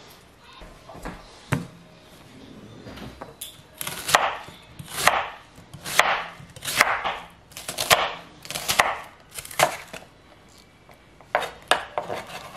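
Santoku knife slicing and dicing a peeled onion on a wooden cutting board: a run of separate chops of the blade against the board, about one a second.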